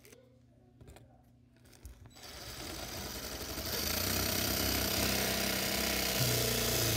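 Power drill starting about two seconds in and running steadily as its bit bores into a computer mouse's circuit board, growing louder as it bites. A few faint clicks come before it starts.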